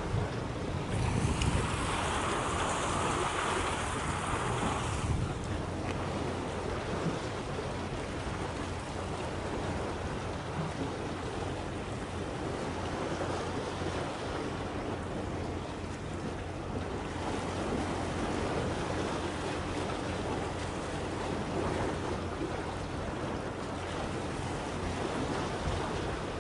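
Wind rushing over the microphone and sea washing against the breakwater, with a steady low drone underneath. A louder gust comes about a second in and lasts some four seconds.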